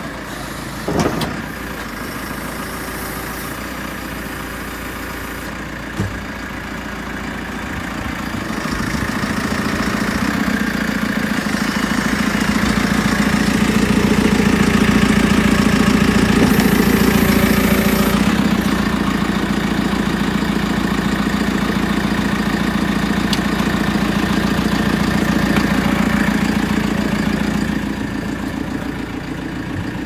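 JCB 3CX backhoe loader's four-cylinder diesel engine idling steadily. It grows louder from about eight seconds in and eases back near the end. A couple of short knocks come in the first few seconds.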